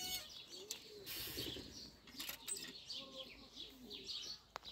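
Domestic pigeons cooing softly in their loft, low rounded coos repeating throughout, mixed with many short high-pitched chirps.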